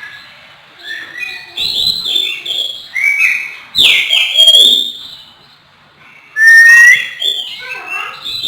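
Oriental magpie-robin (kacer) singing a varied run of loud whistled phrases with sliding notes. The song starts about a second in and breaks off briefly about two-thirds of the way through before going on.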